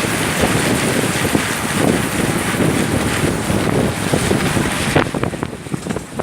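A loud, steady rush of water in heavy rain, with wind buffeting the microphone. About five seconds in it turns choppier and duller.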